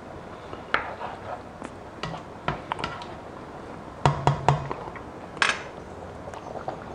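A slotted spoon knocking and scraping against a stainless steel pan of simmering sauce: scattered sharp clinks, with the loudest few knocks close together about four seconds in and a short scrape a little after.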